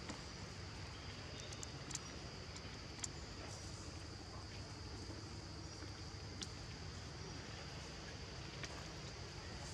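Steady high insect drone over a low rumble, with a few faint clicks and ticks scattered through it.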